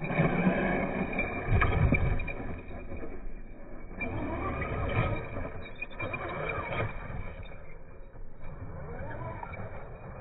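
Traxxas E-Revo 2.0 RC truck's electric motor and drivetrain whining up and down in pitch as the throttle is worked, over tyres churning sand. There are low rumbling thumps in the first couple of seconds as the truck tumbles and lands.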